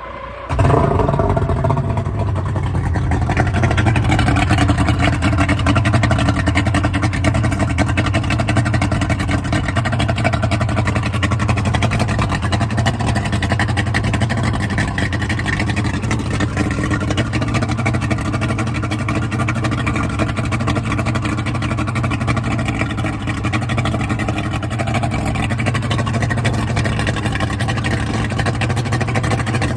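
Yamaha 225 V6 outboard motor starting, its revs flaring and dropping back over the first couple of seconds, then running steadily at idle with its lower unit in a bucket of water.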